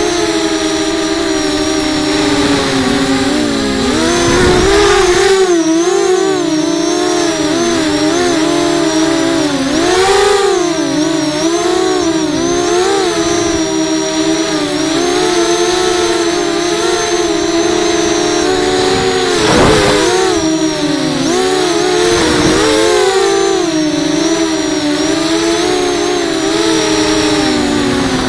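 An FPV racing quadcopter's electric motors and propellers whining, the pitch rising and falling constantly with the throttle, heard from the craft's own onboard camera. A few short rushes of noise cut across it, the loudest about two-thirds of the way through.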